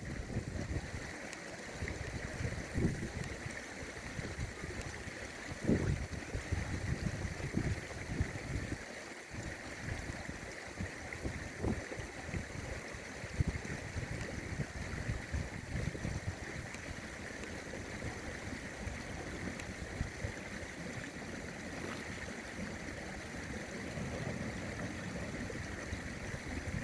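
River water flowing steadily, with strong wind gusting over the microphone in irregular low buffeting rumbles.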